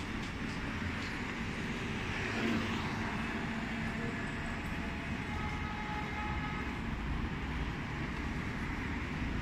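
Steady city street traffic noise with a low rumble, and a few faint thin tones about halfway through.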